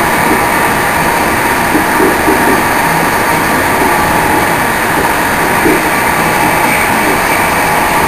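An InterCity train running along the line, heard from inside its last carriage: a loud, steady rolling and running noise, with a few brief louder knocks about two seconds in and again near the middle.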